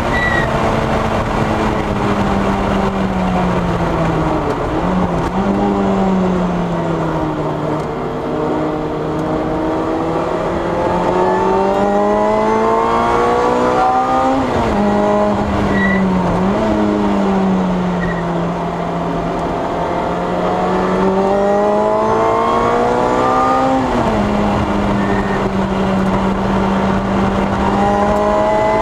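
Lotus Exige S's supercharged engine at track pace, heard from inside the cabin. The revs fall under braking with a brief blip about five seconds in, then climb steadily and drop sharply twice, hold level, and start rising again near the end.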